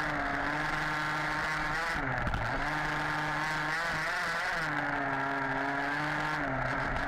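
Two-stroke petrol engine of an HPI Baja 5B 1/5-scale RC buggy, heard onboard, running at high revs. It drops briefly off throttle about two seconds in, again around four seconds and near the end, each time revving back up.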